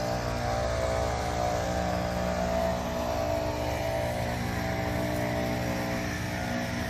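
An engine running steadily with an even, unchanging hum.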